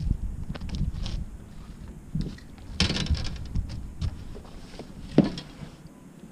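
Knocks, clicks and rustling of someone moving about and handling gear on the deck of a small fishing boat, over a low rumble in the first half. There is a brief rustling burst about three seconds in and a sharp knock just after five seconds.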